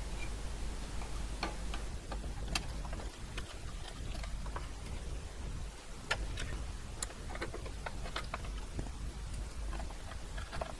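Scattered light clicks and taps of a circuit board being handled and seated onto a floppy drive's metal chassis, with a screwdriver brought to it near the end.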